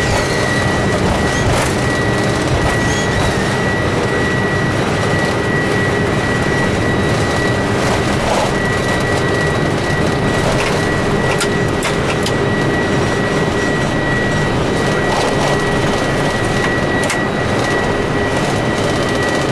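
Boeing 747-400ERF flight-deck noise during the take-off roll and climb-out: the engines at take-off thrust and rushing air make a loud, steady rumble, heard from inside the cockpit. A thin, steady whine runs under it, with a few clicks now and then.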